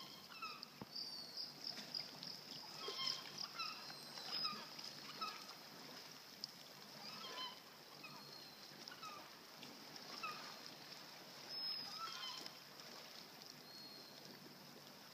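Faint bird calls: many brief honking calls at irregular intervals, coming thicker in the first few seconds and sparser later.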